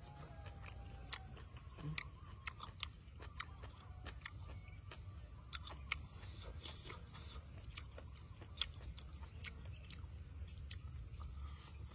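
Someone eating a shredded banana-flower salad by hand: many small crisp clicks of chewing and of fingers working the food in a steel bowl, over a low steady rumble.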